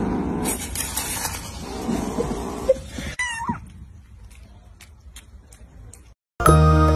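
Kittens eating at a bowl of dry food with a rustling, crunching noise, then a kitten mews once, a short call falling in pitch about three seconds in. Faint ticks follow, and music with piano starts near the end.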